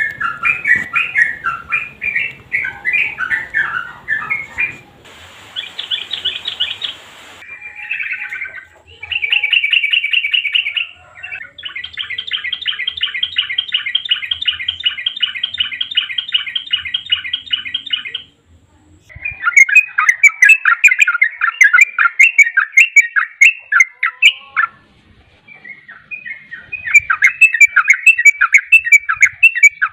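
Yellow-vented bulbuls (trucukan) singing: bubbly, warbled phrases, broken in the middle by a long, rapid trill of evenly repeated notes lasting about six seconds, then more bubbly chattering song.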